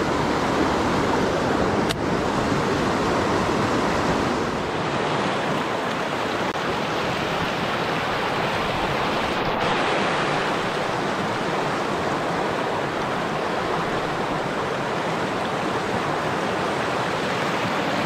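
Steady rush of flowing river water, with a brief click about two seconds in.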